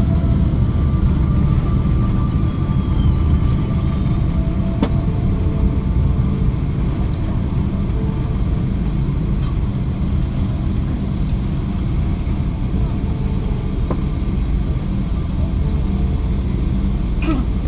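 Steady low rumble inside the cabin of a Boeing 777-300 moving along the ground after landing, with a faint hum over it and a single click about five seconds in.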